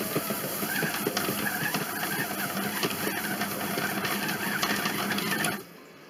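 Monsieur Cuisine Connect kitchen robot running its motor while working bread dough in the steel bowl, with irregular knocking and rattling as the machine shifts on the counter; it stops abruptly about five and a half seconds in.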